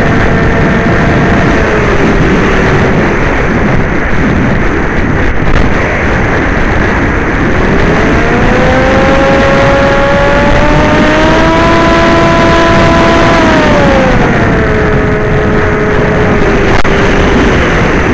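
Electric motor whine of an FPV aircraft in flight under heavy wind rush on its onboard microphone. The whine dips early on, climbs to a higher pitch about eight seconds in, holds, and falls back about fourteen seconds in as the throttle changes.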